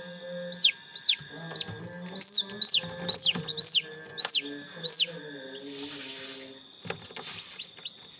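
Domestic chicks peeping: about ten loud, high peeps, each rising then falling, roughly two a second, which stop about five seconds in.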